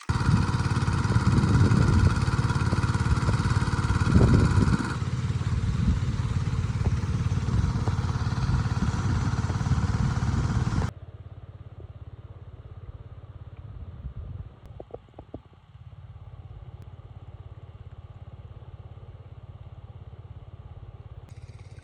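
Small engine running steadily and loudly. About eleven seconds in it drops suddenly to a quieter, steady low hum.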